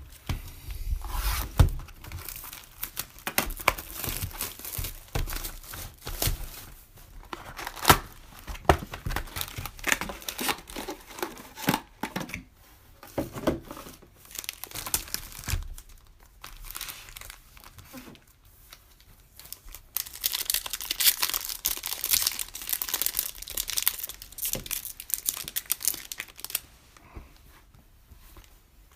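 Plastic wrapping and cardboard packaging of Panini Prizm basketball card retail boxes being torn and crinkled by hand as the boxes are opened, in irregular rips and crackles, with a denser spell of crinkling near the end.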